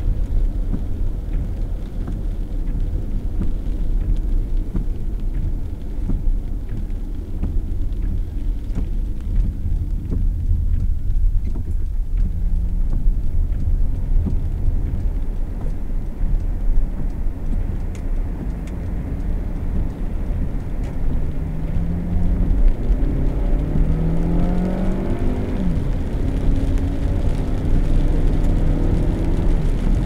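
Car engine and tyre rumble heard from inside the cabin while driving. After slowing, the engine climbs in pitch in several rising steps in the second half as the car accelerates hard through the gears.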